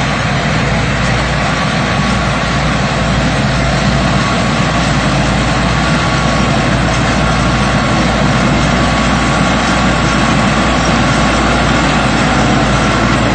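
Rice combine harvester running steadily, its engine and machinery giving a loud, even mechanical noise that holds without a break.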